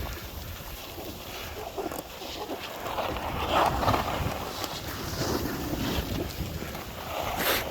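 Wind buffeting the microphone while skiing downhill, with the hiss of skis sliding over snow; it swells about halfway through.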